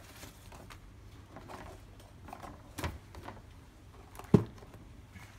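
A cardboard LEGO box and its contents being handled on a table: scattered soft knocks and rustles, with the sharpest knock about four seconds in.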